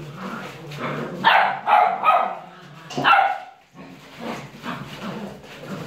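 Puppies barking and yapping as they play, with four loud sharp barks in quick succession between about one and three seconds in.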